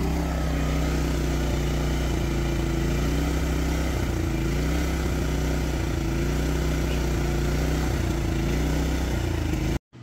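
Yamaha EF2800i inverter generator's single-cylinder engine running steadily, warmed up, at close range. It cuts off suddenly near the end.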